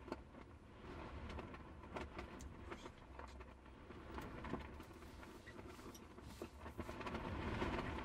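Wind rumbling against a cargo van's body, with rain pattering on the roof in scattered ticks; it grows a little louder near the end.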